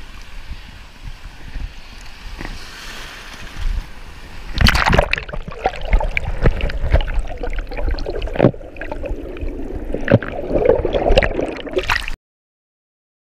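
Shallow surf water washing around the angler's hands, then from about four and a half seconds in, muffled gurgling, sloshing and knocking as the camera goes under the water during a fish release. The sound cuts off abruptly near the end.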